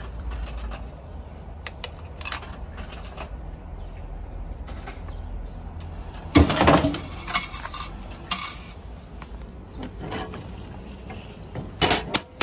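Coins clinking into an old sake vending machine's coin slot, then a loud clunk and rattle about six seconds in as the machine's mechanism drops a glass One Cup Ozeki sake jar into its delivery bin. A few more clunks follow, the last near the end, with the bin's pull-out flap open.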